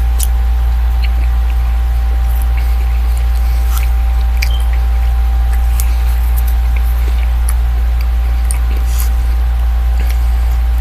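Someone chewing and eating pork chops, with faint wet clicks and smacks scattered through, over a steady low electrical hum with a thin steady tone above it.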